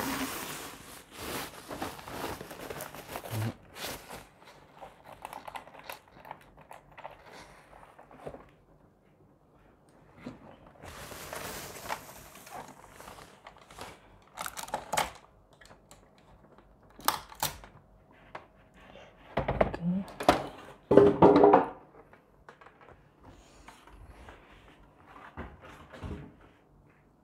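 Plastic wrapping rustling and crinkling as an air purifier is pulled out of its bag, broken by irregular knocks and thunks as the plastic-cased unit is handled and moved, the loudest cluster a little past two-thirds of the way through.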